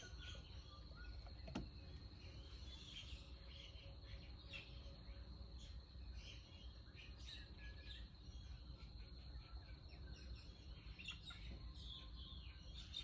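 Near silence: faint room tone with a steady high-pitched whine and scattered faint bird chirps, plus a single click about a second and a half in.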